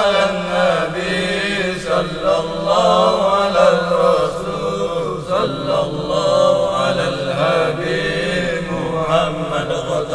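Melodic Arabic chanting of a selawat, blessings on the Prophet Muhammad, drawn out in long wavering notes over a steady low drone.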